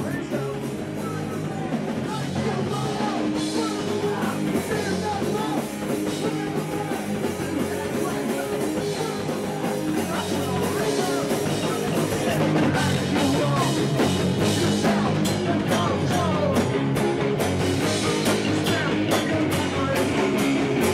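Punk hardcore band playing live, with vocals over guitars, bass and drums; the band grows louder and the drum hits stronger about halfway through.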